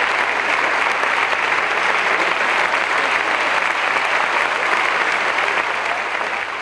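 Large audience applauding steadily for a conductor at the podium, easing slightly near the end.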